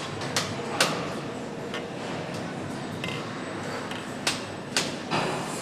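A few sharp metallic clinks and clicks from tools and engine parts being handled during motorcycle engine assembly: two near the start and three near the end, over a steady factory background noise.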